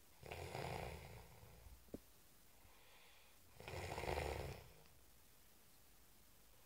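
Snoring in sleep: two long, rumbling snores about three seconds apart, with a short click between them.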